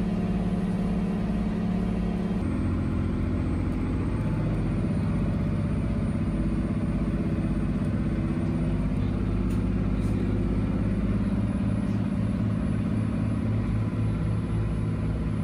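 Ferry engine running steadily, heard from inside the passenger cabin: a low, even hum whose tone shifts slightly about two seconds in.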